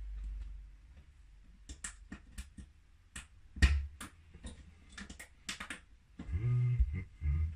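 Small plastic clicks and taps, irregular and a few per second, as keycaps are handled and pressed onto a DIY calculator kit. One louder knock comes about halfway through.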